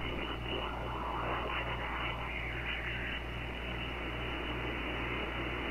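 Shortwave receiver audio: static and hiss from an SDR tuned slowly up through the 49-metre band near 6.04 MHz, with faint traces of a weak station in the noise. Under it runs a low hum that pulses in a regular rhythm.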